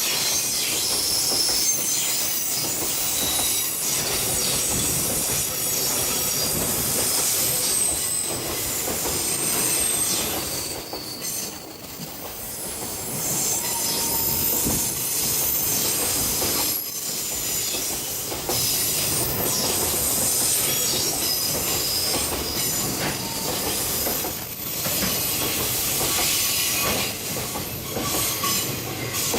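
Freight train wagons rolling past, steel wheels squealing against the rails in high, wavering whistles that come and go over the rumble and clatter of the wheels.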